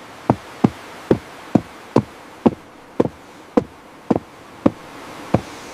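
Steady series of sharp knocks on a hard surface, about two a second, each with a short ring, over a faint buzzing background.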